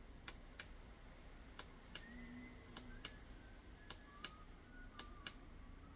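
Near silence broken by faint, sharp ticks at irregular intervals, about a dozen.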